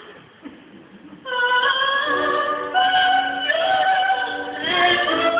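A high female soprano voice singing long, held notes in an operatic style over a steady lower accompaniment; the singing starts about a second in.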